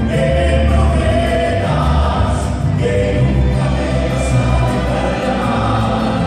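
Mariachi ensemble playing live, with several voices singing together over violins and guitars and a deep, steady bass line.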